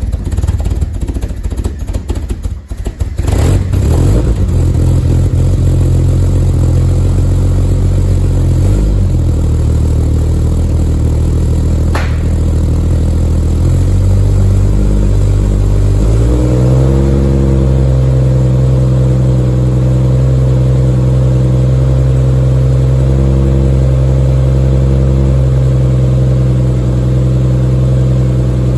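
Exhaust of a freshly rebuilt 1967 Triumph Vitesse 2-litre straight-six on a cold start, through a stainless steel exhaust. The engine runs unevenly for the first few seconds, then settles to a steady idle. About halfway through, the engine speed rises slightly and holds there.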